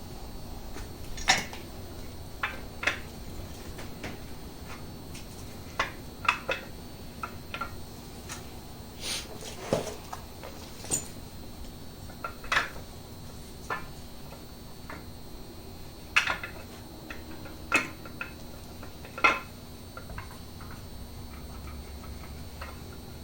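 Irregular metallic clinks and knocks as the camshaft is worked out of the Chevy LS 5.3 V8 block through its cam bearings.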